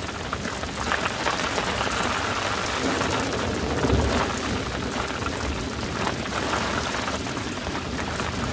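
Wind and rain around an open sailboat cockpit: a steady hiss with an uneven low rumble of gusts on the microphone.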